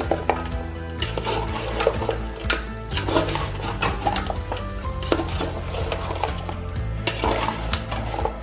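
Stirring and scraping in a cooking pot, with repeated clattering strokes, over background music.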